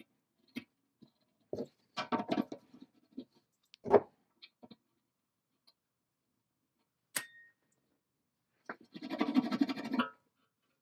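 Small metal parts being worked off a gear spindle by hand: short clicks and scrapes as a steel washer is slipped off the shaft, a sharp metallic clink with a brief ring about seven seconds in, and a rattling scrape lasting about a second near the end as a coil spring is handled.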